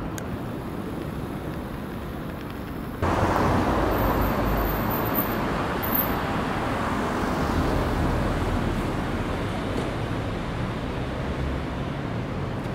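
Road traffic noise in a street: a steady rush that jumps suddenly louder about three seconds in, then slowly fades, like a vehicle passing and moving away.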